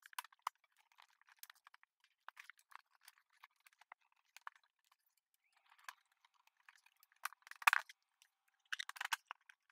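Scattered light clicks and taps of a Bosch dishwasher's faceplate, handle insert and cover plate being handled and fitted by hand, with a louder burst of clicks and scraping about three quarters of the way through and a quick run of clicks near the end.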